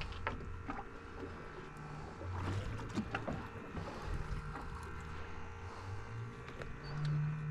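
A boat's engine running low and steady, with a few light clicks and knocks scattered through.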